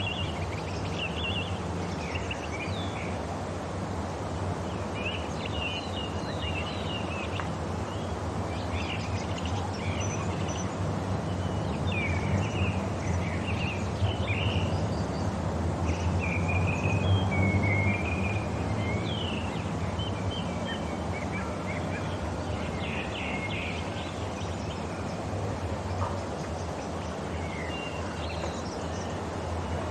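Several songbirds chirping and warbling in short, overlapping calls over a steady low background rumble.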